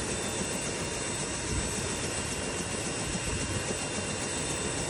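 Turbine helicopter running on the pad with its main rotor turning: a steady turbine whine with thin high tones over an even rushing noise.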